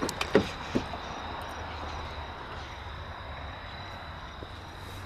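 A car's front door handle pulled and the latch released, three light clicks in the first second. A steady low outdoor rumble with a faint high steady tone follows.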